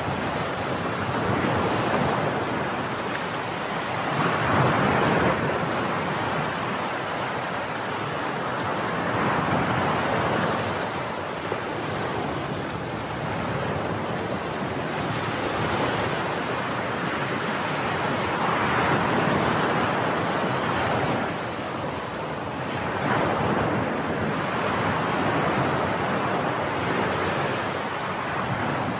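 Sea waves washing, with wind buffeting the microphone; the rush swells and eases every few seconds.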